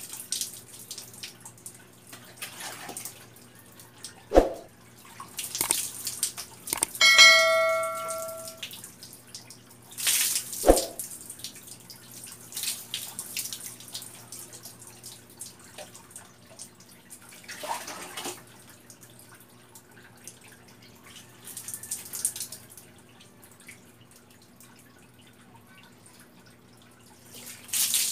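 Water poured from a plastic dipper splashing over a person bathing, in separate splashes every few seconds, some landing with a sharp thump. A short, ringing bell-like ding sounds about seven seconds in.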